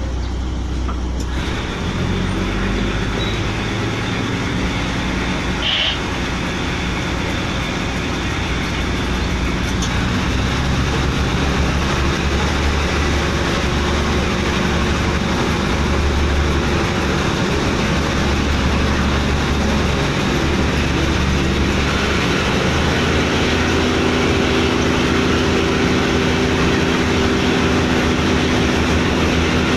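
Diesel locomotive engine running under power, heard from inside the cab, with the rumble of the train rolling on the rails. The noise grows steadily louder as the train gathers speed, and the engine's hum becomes stronger about two-thirds of the way through.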